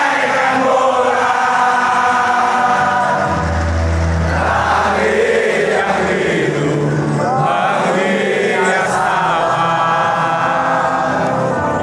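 A stadium crowd of PSIS Semarang supporters singing the club anthem together, thousands of voices holding a slow melody in unison.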